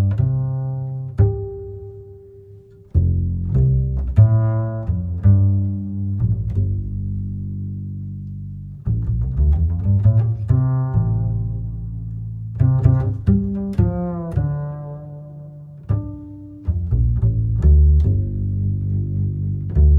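Background music built on low, plucked string notes that ring and fade, with higher melodic notes over them.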